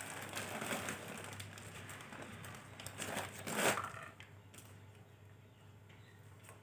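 Plastic drinking straws crinkling and rustling as they are handled and pressed together, with a louder crackle a little over three seconds in, then quieter.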